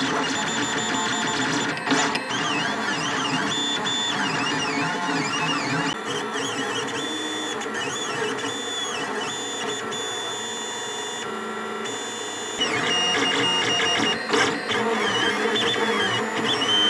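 Lulzbot Mini 3D printer's stepper motors whining as the print head moves, the pitch sweeping up and down in quick arcs as it traces curves. The whine thins out briefly about eleven seconds in, then picks up again.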